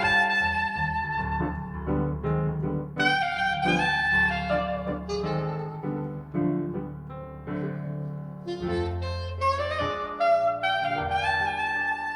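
Soprano saxophone playing a slow melody of long held notes over piano accompaniment in a jazz duo.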